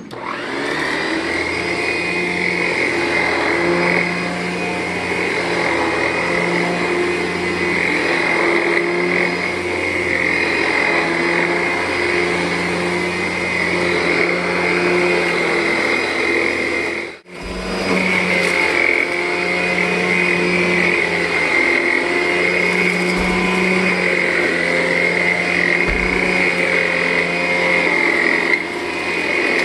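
Vacuum cleaner running steadily as it is pushed over carpet, a constant motor whine over a hum that swells and fades with the strokes. The sound drops out for an instant just past halfway, then carries on.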